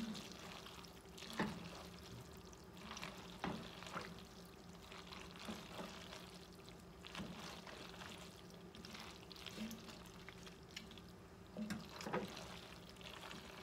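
Wooden spoon stirring a thick pasta mixture in an enameled cast-iron pot: soft, wet shuffling with irregular light scrapes and taps against the pot, a little louder about a second in and near the end. A faint steady hum runs underneath.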